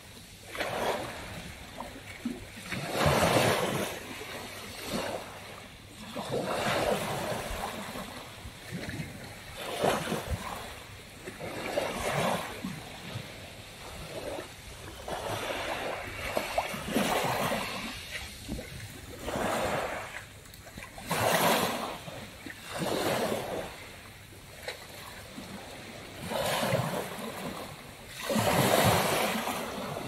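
Small sea waves breaking and washing up a pebble beach, one surge every two seconds or so.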